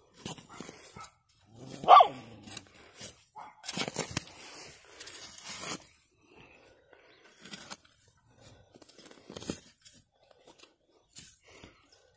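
A dog barks once, short and loud, about two seconds in. Around it come scattered scrapes and rustles as dry soil is dug and pulled away by hand.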